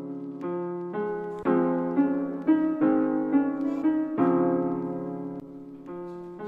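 Background music: a soft piano melody, notes struck and left to ring and fade, with chords in the lower register.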